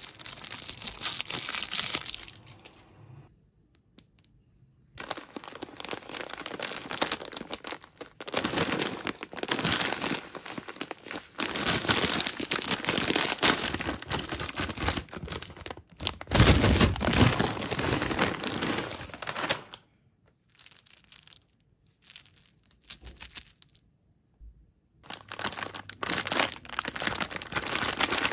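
Plastic candy and snack wrappers being crinkled and torn open by hand. The dense crackling comes in long bouts separated by short pauses.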